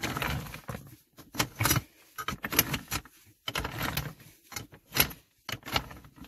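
Metal rod knocking and scraping among loose stones as it is pushed into a rock-cut cavity, with irregular clinks and rattles of the stones shifting.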